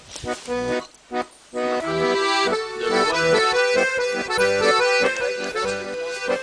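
Instrumental music of held chords and melody notes: short, broken notes at first, then a steady run of sustained chords from about one and a half seconds in.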